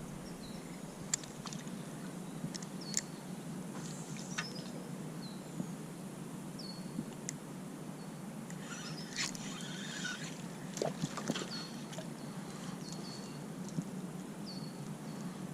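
A small bird calling with short, high chirps, repeated about once a second in the later part, over a steady low hum, with scattered sharp clicks.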